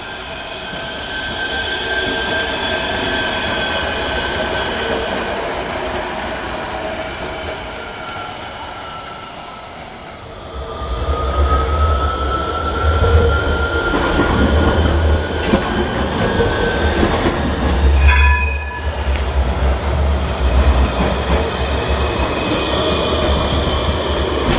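Electric street tram on street track: the steady whine of its traction motors swells and fades as it moves off. Then another tram comes up and passes close, its motor whine slowly rising in pitch over a heavy low rumble of wheels on rail.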